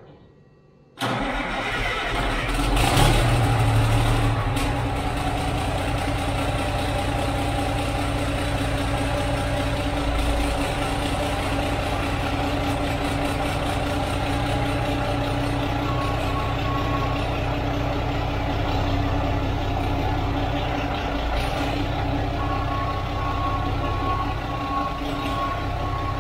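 Semi truck's diesel engine starting about a second in, rising briefly, then settling into a steady idle. It is running with its exhaust pipe off, on a test run after a transmission replacement.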